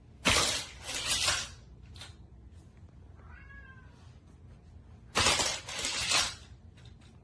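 Two bursts of plastic clattering and rattling, one near the start and one about five seconds in, as a die-cast toy car is launched along a Hot Wheels plastic track that fails to carry it up to the loop. A faint, short, high call with gliding pitch comes in between.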